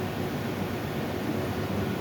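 Air-handling unit blower running: a steady rush of moving air with a faint steady hum.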